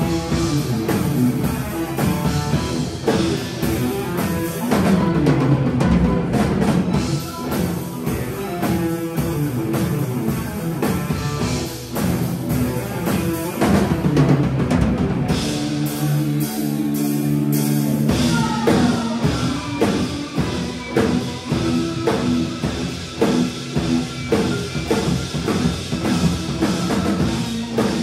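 Live rock band playing an instrumental passage, drum kit and electric guitars over bass. About sixteen seconds in, the drums and cymbals briefly drop away under a held chord, then the full band comes back in.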